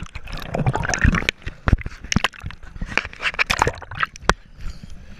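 Pool water sloshing and splashing against an action camera's waterproof housing as it is moved through the surface, with irregular sharp splashes and knocks.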